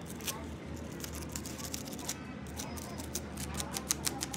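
Small sharp clicks and light scratching from fingers working fine wire into the metal brush holders of an electric cooling-fan motor's brush plate. The clicks come faster and louder near the end, over a low steady hum.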